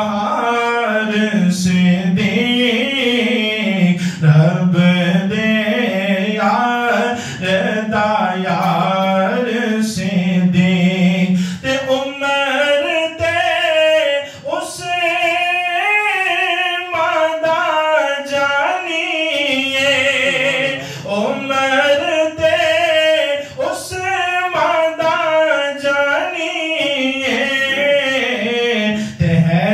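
A man singing a manqabat, a devotional song, solo and unaccompanied into a microphone, in long ornamented melodic lines. About twelve seconds in his voice moves up to a higher pitch.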